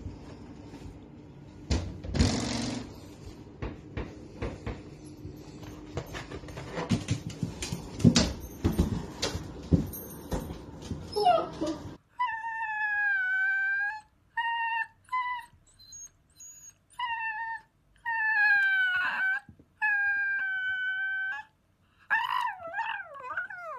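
Irregular knocks and thumps for about the first half, then a long-haired dachshund whining: a run of high, drawn-out howl-like whines, each up to about a second and a half long, turning quicker and more wavering near the end.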